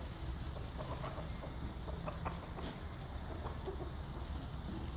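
Domestic chicken clucking in short, scattered notes over a steady low rumble.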